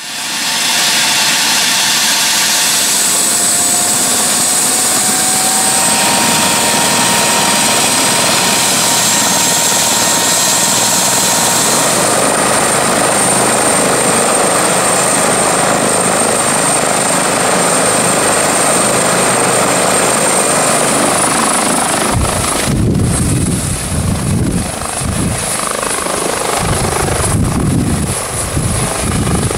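Airbus H145 rescue helicopter running on the ground with its rotor turning: a steady high turbine whine that steps up in pitch twice as it is brought up to power. About three-quarters of the way through, a heavy low rotor beating takes over as it lifts off and hovers.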